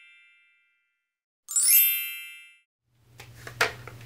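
A bright chime sound effect rings once about one and a half seconds in and fades away over about a second, after the fading tail of an earlier chime. Near the end a low steady hum with small rustles and clicks of room sound comes in.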